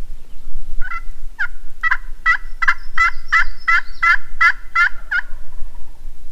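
Turkey call sounding a loud run of about a dozen evenly spaced notes, each breaking from high to low and coming slightly faster toward the end, sent out to try to make a distant gobbler answer.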